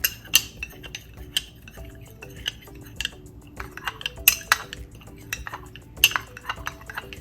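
A spoon stirring a thick mixture of honey, olive oil and cinnamon powder, clinking and tapping irregularly against its container.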